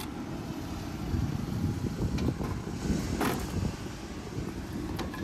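Low rumble of wind on the microphone and street background noise, with a brief knock about three seconds in.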